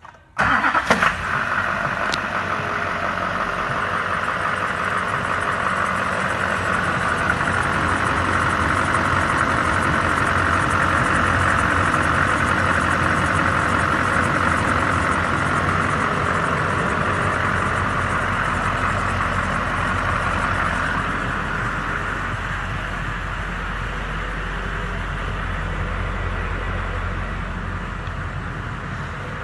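LBZ Duramax 6.6-litre turbodiesel V8 idling steadily.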